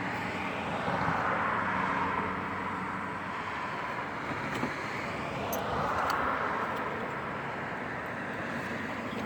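Steady outdoor noise of passing vehicles, swelling twice as they go by, with a few faint clicks.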